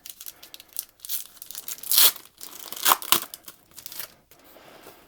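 Old-style wax-paper trading card pack wrapper being torn open and crinkled, with the loudest rips about two and three seconds in.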